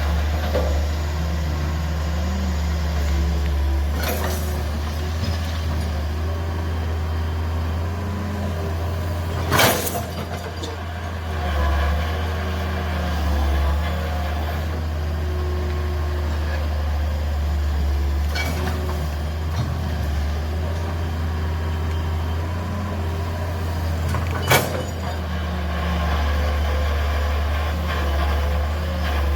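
Heavy diesel engine running steadily with a deep drone, with a few sharp knocks or bangs over it, the loudest about ten seconds in and another near twenty-five seconds.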